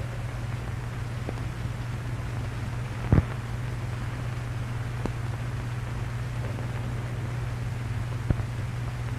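Steady hiss and low hum of an old film soundtrack, with a few sharp clicks, the loudest about three seconds in and another near the end.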